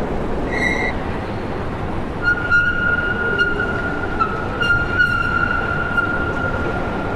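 A train or metro car running, with a steady rumble. A brief high squeal comes just under a second in, and from about two seconds in a long steady high-pitched squeal runs on with a few clicks over it, as from the wheels on the rails.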